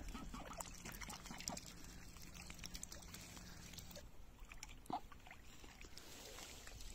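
Faint dabbling and small splashes of geese and ducks feeding on floating cabbage leaves in pond water, with one slightly sharper splash about five seconds in.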